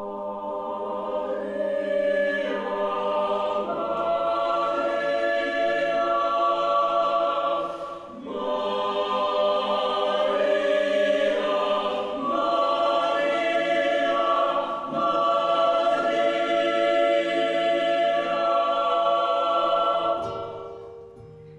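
Mixed chamber choir singing long held chords in slow phrases, with a brief breath about eight seconds in, dying away near the end.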